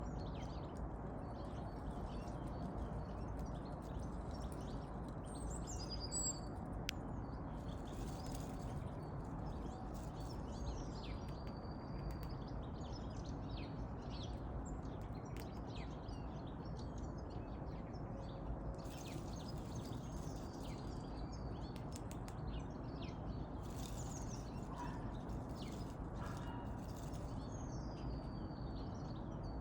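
Small birds chirping and calling now and then, short high notes scattered throughout, over a steady low background rumble.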